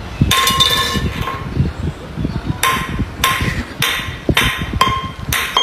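Sharp metallic clanks, each with a short ring: one just after the start, then a steady run of about one every 0.6 seconds through the second half.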